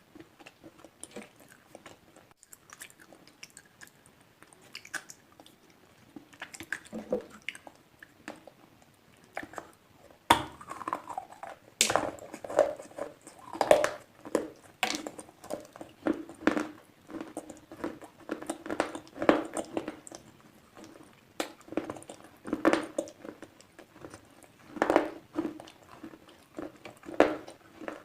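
Slate pencils being bitten and chewed, with crisp, gritty crunches. The bites are sparse and quieter at first, then louder and much more frequent from about ten seconds in.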